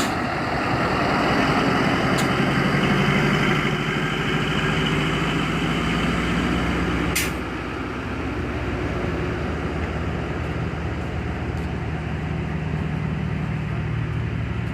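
Diesel locomotive engine running with a steady drone as a passenger train pulls out of the station. There is a sharp knock about seven seconds in, after which the sound drops a little.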